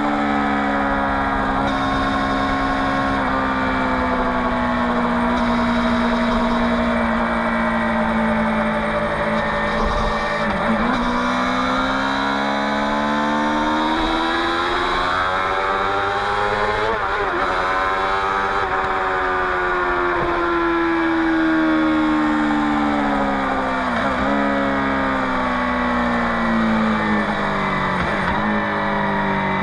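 Suzuki GSX-R 600 K7's inline-four engine through a Yoshimura R55 slip-on exhaust, under way. The engine note falls slowly, climbs again over several seconds from about a third of the way in, then falls, with a few brief dips in pitch along the way and a rise near the end.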